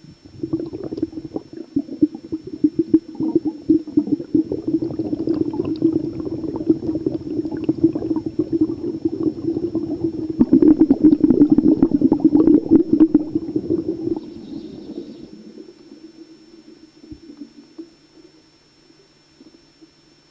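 Heard underwater: a scuba diver's exhaled air bubbling and crackling, starting suddenly, loudest a little past the middle, then dying away a few seconds before the end.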